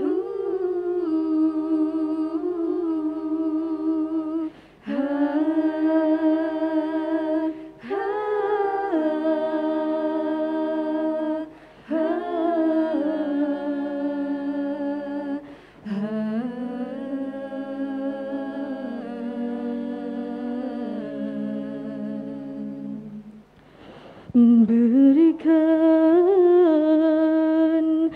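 Women's nasheed vocal group singing in harmony: a lead voice moves over held notes from the other singers, in phrases of a few seconds with short breaks between them.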